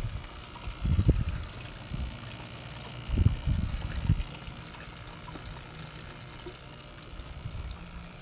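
Water trickling steadily through a hydroponic system's PVC grow pipes, with a few low bumps or gusts on the microphone about a second in and again around three to four seconds in.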